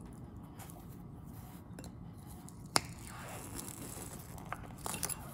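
Metal hex driver prying the stuck hex off an RC car wheel, levered against the rim: faint scraping, one sharp click a little under three seconds in, and a few lighter clicks near the end.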